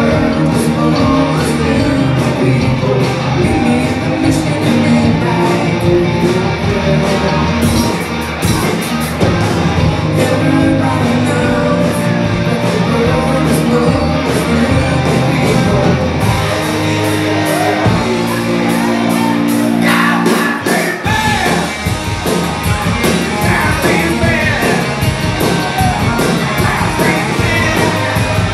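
Live rock band playing in a bar: electric guitar, bass guitar, drums and keyboard with singing and shouted vocals. About 18 seconds in the drums stop for a few seconds of held notes, then the full band comes back in.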